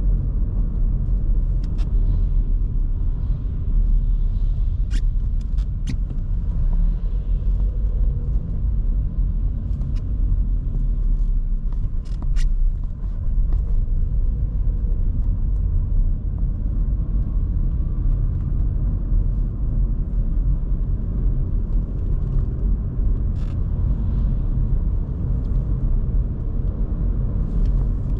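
Steady low rumble of road and engine noise from a 2023 Škoda Kamiq with its 1.0 TSI three-cylinder turbo petrol engine, cruising at an even pace. A few faint sharp ticks come through now and then.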